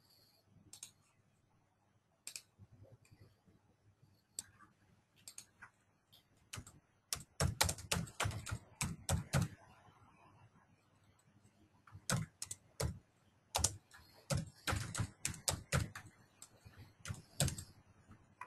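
A few single clicks, then two runs of typing on a computer keyboard.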